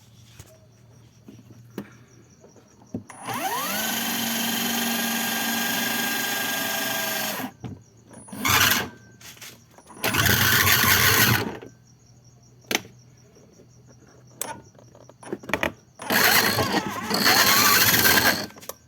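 Motor switched on several times: the first run spins up with a rising whine and holds steady for about four seconds, then three shorter bursts follow, with sharp clicks between runs. It makes a lot of noise and has lost power after smoking, which the owner takes for something stripped inside the motor.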